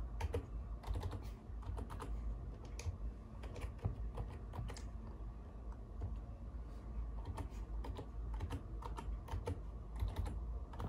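Computer keyboard being typed on, keys clicking in quick irregular runs with short pauses between them, as a password is entered.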